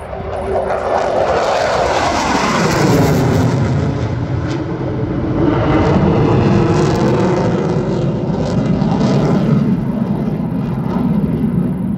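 F-16 fighter jet's engine roaring as the jet flies past low and climbs away; the pitch of the roar sweeps downward about two to four seconds in as it passes, and the roar stays loud as it recedes.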